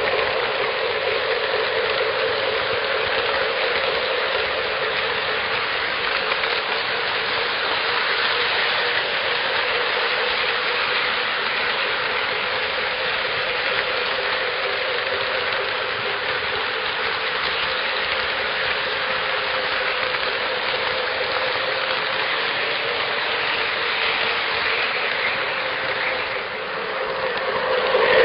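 O gauge Menards F-unit model locomotive pulling a freight train: a steady rattling rush of wheels on track with motor hum, dipping briefly near the end and then growing louder again.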